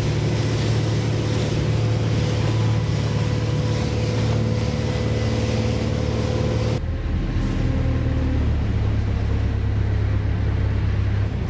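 Boat's motor running steadily with a constant hum. About two-thirds of the way through, the sound cuts abruptly to a duller, more muffled run of the engine.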